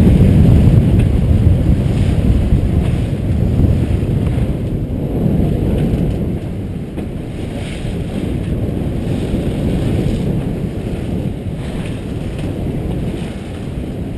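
Strong wind buffeting the microphone with rushing sea water as a sailing catamaran pounds through big waves. A low rumbling noise, loudest in the first couple of seconds and easing somewhat after the middle.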